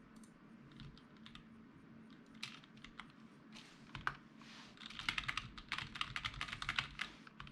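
Typing on a computer keyboard: a few scattered keystrokes, then a quick burst of rapid typing over the last two or three seconds.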